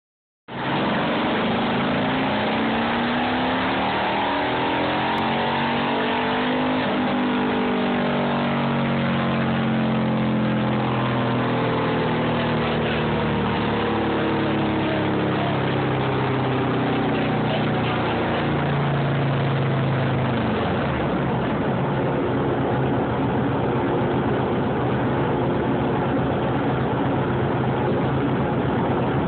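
Harley-Davidson V-twin running under load on a chassis dyno, its pitch climbing and falling through a dyno pull. About twenty seconds in it drops back to a steadier, lower note.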